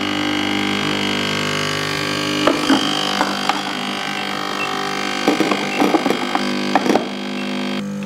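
De'Longhi Stilosa's vibratory pump humming steadily while pulling an espresso shot through a bottomless portafilter, with a few light clicks and knocks along the way. The owner later says the group gasket was leaking during this shot.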